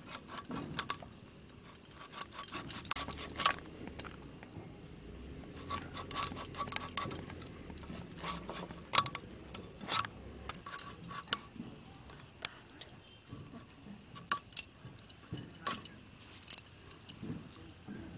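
Fish scales being scraped off a whole bhetki (barramundi) against a bonti blade: irregular crisp scraping strokes and clicks of scales flicking off, with a few sharper clicks along the way.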